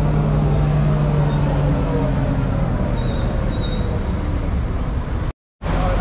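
A motor vehicle running steadily, its whine slowly falling in pitch as it slows down. The sound drops out completely for a moment near the end, then comes back.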